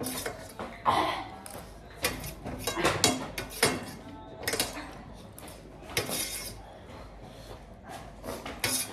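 Eating utensils clinking and knocking against a bowl of noodles: irregular short clicks and scrapes.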